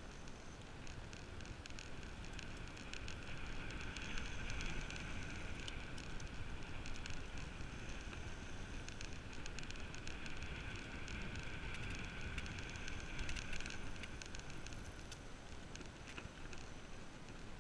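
Bicycle rolling along a paved road: tyre noise and wind rushing over the camera microphone, with light, irregular clicking throughout.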